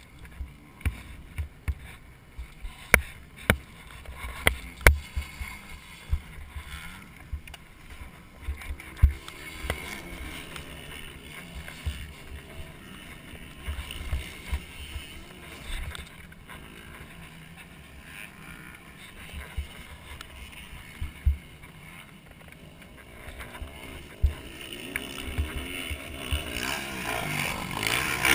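Knocks and thumps in the first few seconds while the fallen Kawasaki KX250 dirt bike is handled and picked up, then its engine running as it is ridden off, getting louder near the end.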